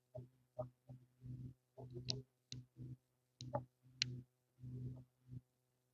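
A string of about a dozen short clicks and handling noises close to the microphone, irregularly spaced, each carrying a low hum that drops out in the gaps between them.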